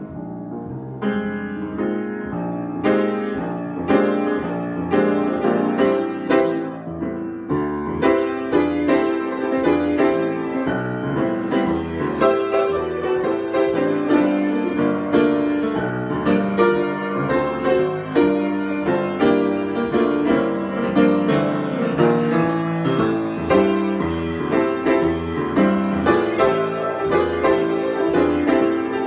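Solo piano improvisation: chords and melody notes played continuously. It starts sparse and fills out after the first second.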